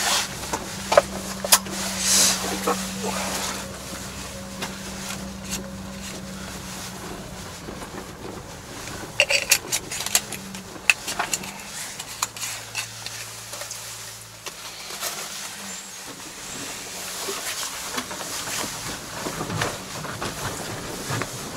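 Small Japanese kei truck driving along a bumpy dirt track, heard from inside the cab: a steady engine hum with scattered knocks and rattles as it jolts over the ruts. The engine note drops to a lower pitch about halfway through.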